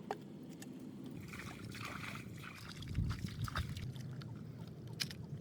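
Water sloshing and splashing, with scattered clicks and a low thump about three seconds in.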